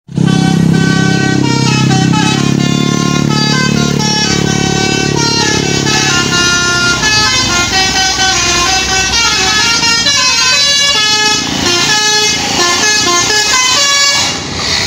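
A bus's 'telolet basuri' musical air horn playing a quick melody, loud, its notes changing several times a second. A low rumble sits under the first few seconds.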